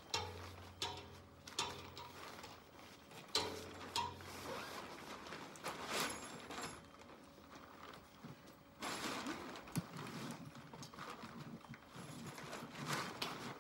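Tent poles and fabric being handled while a dome tent is pitched: irregular clicks and knocks from the poles, with the nylon and mesh rustling and crinkling between them, more continuously in the second half. A low hum sounds in the first few seconds.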